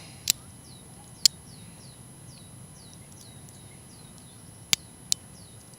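Blades and tools of a Victorinox Swiss Army knife snapping shut on their back springs: four sharp clicks, two in the first second and a half and two close together near the end. Repeated short falling chirps in the background.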